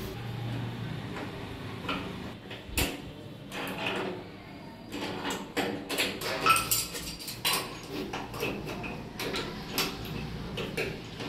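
Metal plumbing fittings clicking, scraping and clinking irregularly as wall-mixer offsets are screwed into the wall pipe points, with one sharper metallic clink about six and a half seconds in.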